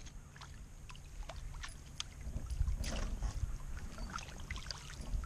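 A hooked fish splashing at the water's surface beside a canoe as it is grabbed and landed by hand, with scattered small splashes and a louder splash about three seconds in, over a steady low rumble.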